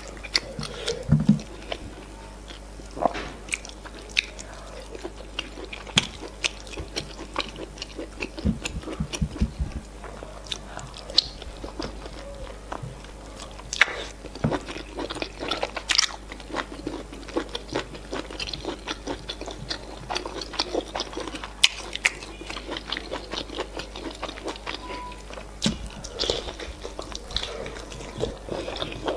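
Close-miked eating sounds: wet chewing and lip smacking as soft semolina fufu and efo riro (spinach stew) with meat are eaten by hand. Many sharp, irregular mouth clicks run through it.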